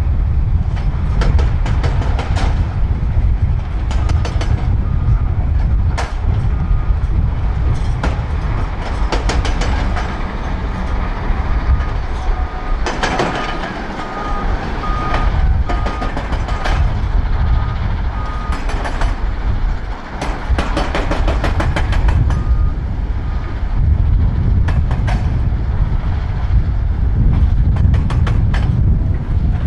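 Volvo L350F wheel loader's six-cylinder diesel engine working hard under load, with rock scraping and clattering as the bucket digs into the pile. Its reversing alarm beeps about one and a half times a second through the middle stretch as the loader backs away.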